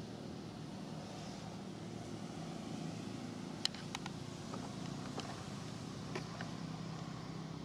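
Steady low hum of a motor-vehicle engine running, with a few sharp clicks about halfway through.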